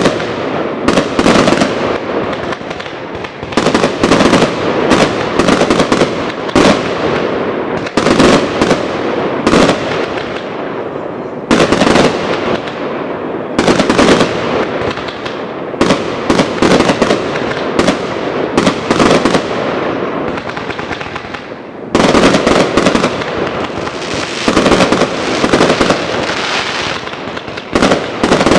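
Many New Year fireworks and firecrackers going off: dense sharp bangs and crackling in repeated volleys, with brief lulls between them.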